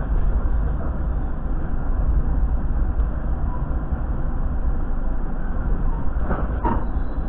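Steady low rumble of a passenger train carriage rolling slowly, heard from inside the cabin, with two short clanks about six and a half seconds in.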